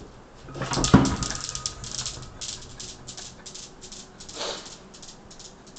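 Steel balls of a Newton's cradle knocked about by a kitten: a loud knock about a second in, then a fast, irregular run of metal clicks that thins out over a couple of seconds. A short kitten's cry comes near the end.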